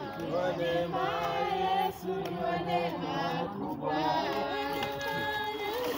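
A group of people singing together, several voices holding drawn-out notes at once, with a brief break about two seconds in.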